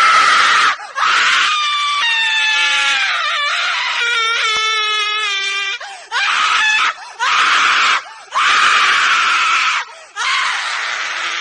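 A woman screaming over and over: about six loud screams with brief breaths between them, most of them harsh and raspy, one long one in the middle held as a wavering, falling wail.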